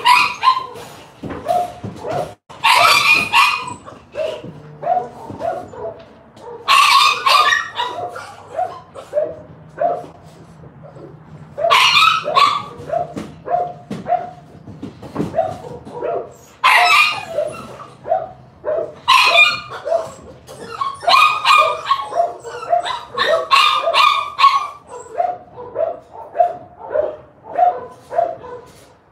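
Several dogs barking. A steady run of quick, lighter barks comes about two a second, broken every few seconds by clusters of louder, harsher barks.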